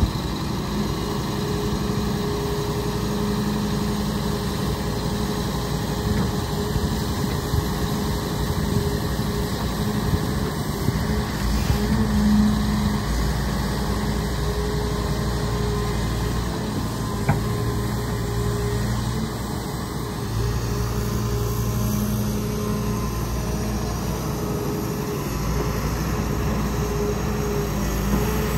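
Excavator's diesel engine running steadily with a low hum. The rumble grows heavier for a few seconds about eleven seconds in and again from about twenty seconds on.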